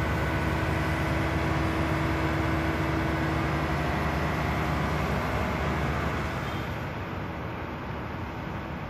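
A fire engine's pump engine runs steadily, driving a high-pressure hose jet. Its hum eases a little about six seconds in, as the jet shortens.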